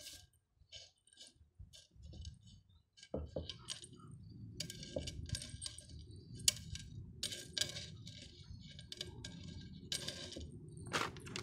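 Hands pressing and working gritty potting mix around a plant's trunk in a pot: scattered small crackles and clicks of the grains shifting and rubbing. A steady low rumble runs underneath from about three seconds in.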